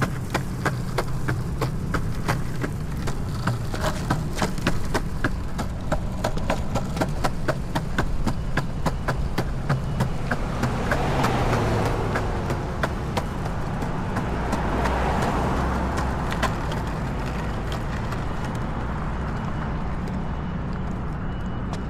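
Longboard's urethane wheels rolling on a concrete sidewalk: a steady rumble with quick, regular clicks as the wheels cross the slab joints, the clicks thinning out near the end. A car passes on the road about ten seconds in, and another vehicle swells past around fifteen seconds.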